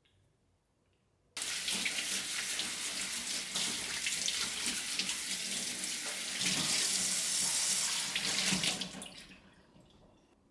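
Water from a tap running into a sink. It comes on abruptly about a second and a half in, runs steadily, and is shut off near the end, trailing away.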